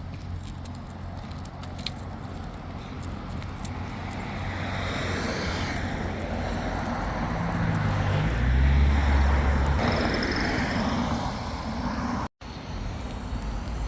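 Road traffic noise: a steady rushing that swells to a peak about nine seconds in, with a low hum at its loudest, then eases off. A brief dropout breaks it near the end.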